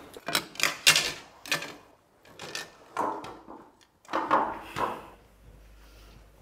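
A string of short knocks and clatters, several close together in the first two seconds and a few softer ones around the middle.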